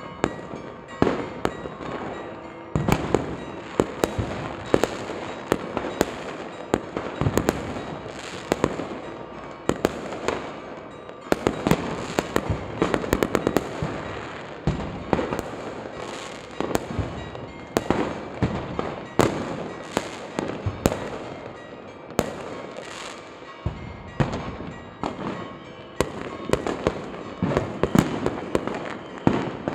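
Fireworks and firecrackers going off all over a town: an irregular barrage of sharp bangs and cracks, several a second, over a continuous rumble.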